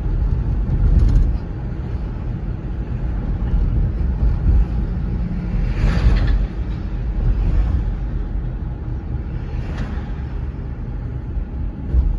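Car road noise heard from inside the cabin: a steady low engine and tyre rumble while driving slowly along a city street. Three brief louder swells of hiss come about a second in, midway and near the end.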